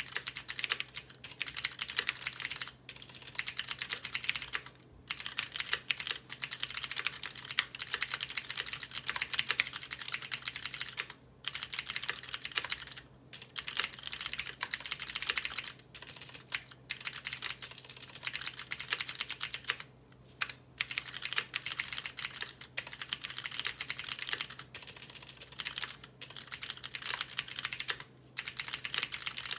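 Cherry MX Board 3.0S keyboard with clicky Cherry MX Blue switches, built without a reinforcing plate or screws, being typed on in quick continuous runs of key clicks with short pauses every few seconds.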